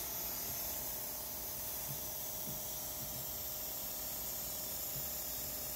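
Steady, even hiss with a faint hum underneath; nothing else stands out.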